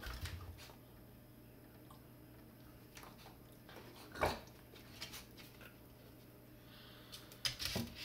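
A few short knocks and scuffs from a beagle standing up against a kitchen cabinet and reaching for food on the counter, the loudest about four seconds in.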